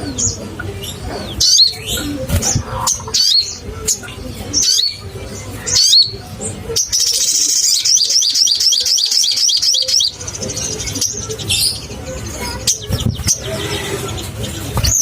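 Little spiderhunter calling: sharp high chirps in short bursts, with a rapid run of evenly repeated notes lasting about three seconds near the middle.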